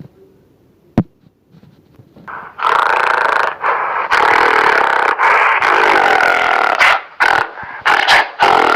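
Gorilla vocalizing: after a near-quiet start with a single sharp click, a loud, rough call starts about two and a half seconds in and goes on for several seconds with short breaks.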